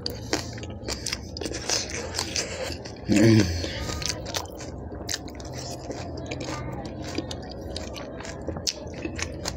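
Close-miked chewing and crunching of raw green chillies soaked in pani puri water, with sharp crisp clicks and wet mouth sounds throughout. About three seconds in, a short loud vocal sound from the eater stands out.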